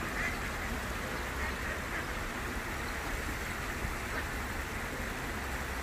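Steady rush of a shallow stream's water spilling over a small weir, with wind rumbling on the microphone. A few brief, faint calls stand out now and then.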